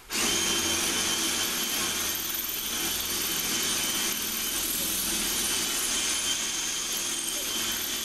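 Makita drill running steadily as it bores an anchor hole into a brick wall.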